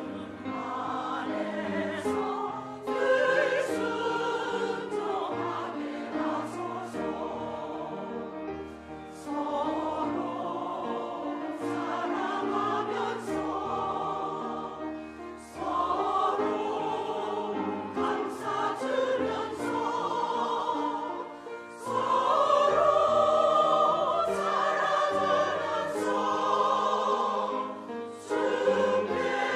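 Church choir singing a hymn in sustained, many-voiced phrases, with short breaks between phrases every six seconds or so.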